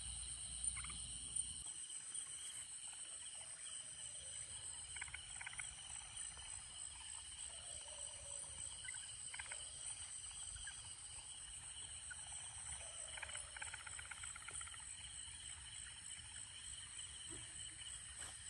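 Night chorus of insects, crickets chirring steadily and high-pitched, with a frog giving short pulsed calls now and then. A low rumble of handling noise fades out in the first couple of seconds.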